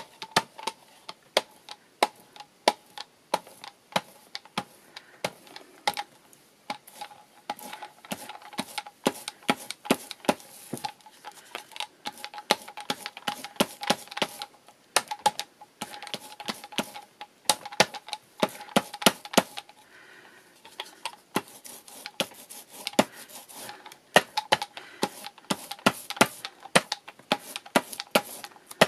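Soft rubber brayer rolling back and forth through a thin, tacky layer of white paint on card, giving a fast, irregular crackle of sticky clicks as the roller peels off the wet surface, with a short lull about twenty seconds in.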